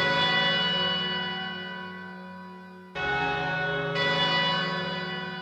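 Music of bell-like chimes: a struck chord at the start and two more about three and four seconds in, each ringing on and slowly fading.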